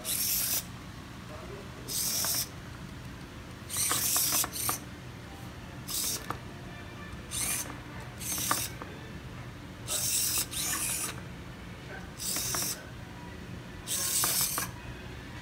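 Two small hobby servos whirring through their gears in short bursts, about every second or two, as they swing the cardboard robot's toothpick legs, with a few light ticks between the bursts.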